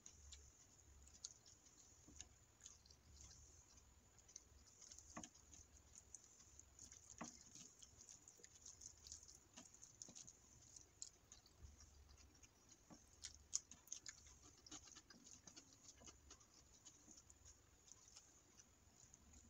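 Faint, irregular soft wet clicks and squishes of fingers mixing biryani rice with curry on a plate.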